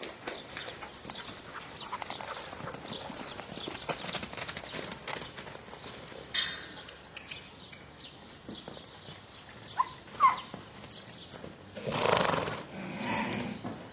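Hoofbeats of a pony foal and a mare moving on a dirt corral, irregular and light, with a short loud burst of noise about twelve seconds in.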